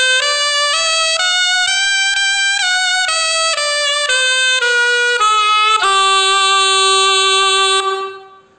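Ciaramella (Italian folk shawm) playing a scale exercise: separate notes stepping up to a high note about two seconds in, then stepping back down, ending on a long held low note that fades away near the end.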